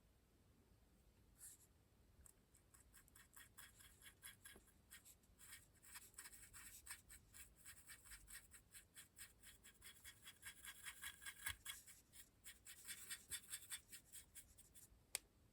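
Faint, rapid scratching of a stiff brush working weathering pigment powder into a model locomotive's bodywork, several strokes a second, with one sharp click near the end.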